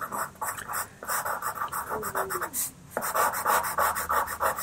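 White Faber-Castell Pitt pastel pencil scratching across textured pastel paper in quick, repeated short strokes, with a brief pause a little past halfway.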